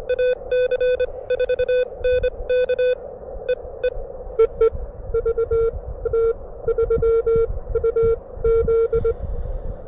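Morse code (CW) from an amateur radio transceiver at about 25 words per minute: a tone near 500 Hz keyed in fast dots and dashes. One run of sending is followed, after a short gap, by a second run at a slightly lower pitch. A low rumble of wind on the microphone lies underneath.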